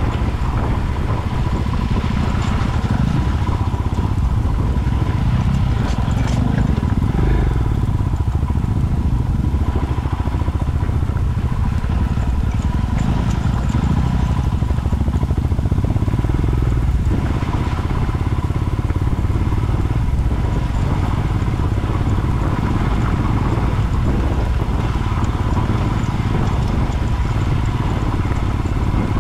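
Single-cylinder adventure motorcycle running steadily under way, with a heavy low wind rumble on the microphone.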